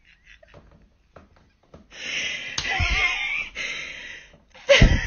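Women laughing hard in high-pitched, wheezing squeals, breaking off near the end.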